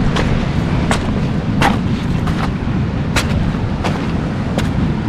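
Footsteps over rocks and pebbles, a sharp click or crunch about every three-quarters of a second, over a steady low rumble.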